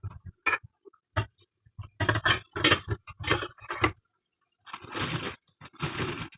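Fruit being handled and washed in a kitchen sink: irregular scrapes, rubs and light knocks, with two longer noisy bursts near the end.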